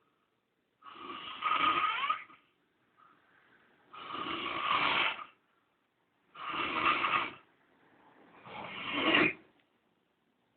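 A man snoring in his sleep: four snores, each about a second long, coming roughly every two and a half seconds with quiet breaths in between.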